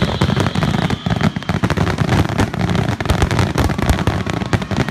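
Aerial fireworks bursting in a dense barrage, many overlapping bangs and crackles in quick succession. A steady high tone fades out about a second and a half in.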